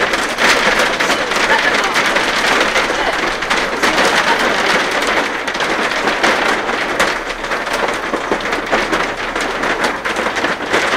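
Hailstorm: hailstones and heavy rain falling and striking surfaces, a dense steady hiss dotted with many sharp ticks of single stones hitting.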